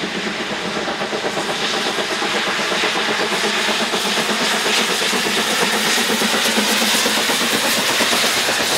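Two steam locomotives double-heading a passenger train, their exhausts chuffing hard under heavy steam, the sound growing steadily louder as they approach.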